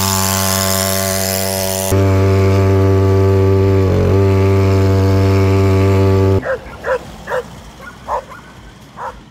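Scooter's 50cc two-stroke Red Rhino engine running flat out with a steady high buzz, dipping briefly about four seconds in. About six seconds in the engine drops away and dogs bark sharply about five times.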